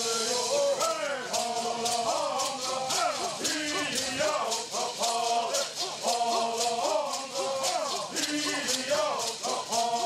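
Group of men singing a Southern California bird song in unison, their voices holding and sliding between notes over a steady beat of shaken gourd rattles, about three shakes a second.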